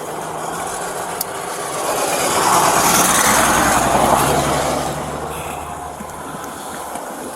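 A vehicle passing close by, its road noise rising to a peak mid-way and then fading, over a steady low engine hum.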